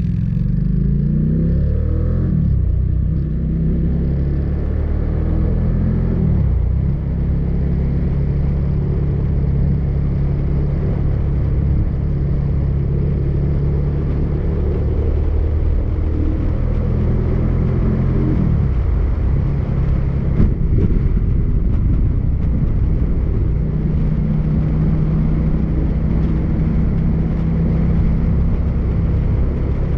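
Motorcycle engine running under way, with wind rushing past the microphone. The engine note climbs in the first few seconds, drops back twice, about a quarter and about two-thirds of the way through, then holds steady. There is one brief knock shortly after the second drop.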